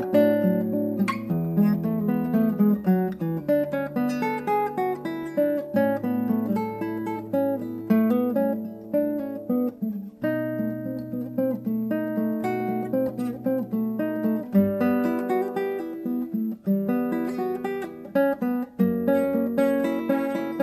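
Instrumental background music: a run of plucked string notes over lower bass notes that change every few seconds.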